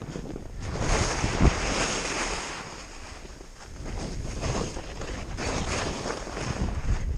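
Skis hissing and scraping through chopped-up powder snow, swelling in waves through a series of turns, with wind noise on the microphone and a low thump about one and a half seconds in.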